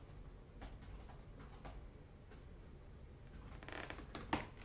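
Faint, scattered light clicks and taps at an uneven pace, a few sharper ones near the end.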